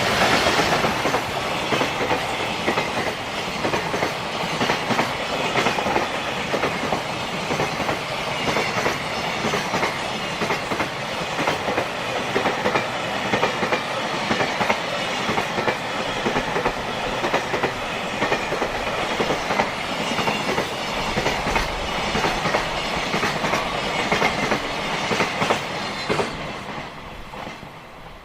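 Freight train passing close by, its wagon wheels clattering over the rail joints in a long run of clicks. The sound fades away near the end as the last wagons go by.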